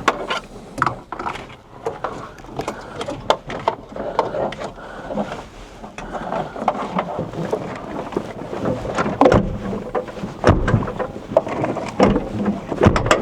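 Irregular clicks, knocks and rustling as a power cable and its connector are handled and fed through an opening in a tractor cab to the outside. The knocks grow a little louder and closer together near the end.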